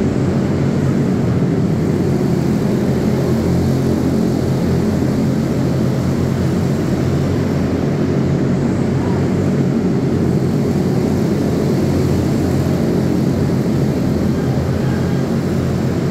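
A pack of junior Animal-class racing go-karts, single-cylinder four-stroke Briggs & Stratton Animal engines, running together at racing speed in a steady, overlapping drone inside an indoor arena.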